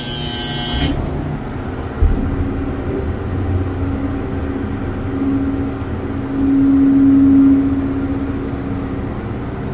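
Westinghouse hydraulic elevator running, heard from inside the car: a hiss cuts off about a second in, a clunk about two seconds in, then a steady machinery hum whose tone swells louder for a second or two past the middle.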